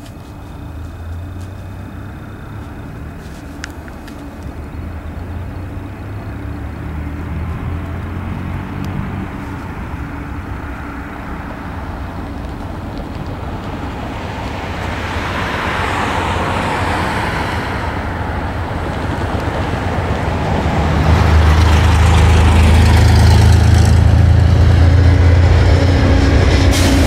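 Amtrak passenger train with diesel locomotives approaching and passing close by. The low engine rumble and rail noise grow steadily louder and are loudest from about three-quarters in, as the locomotives go past.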